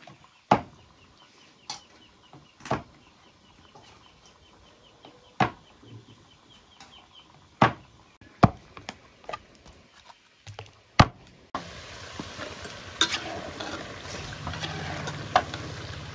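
About seven single sharp knocks, a second or a few seconds apart, each one blow on plantain pieces in the cooking. Hens cluck softly in the background. Near the end the sound turns suddenly to a steady hiss.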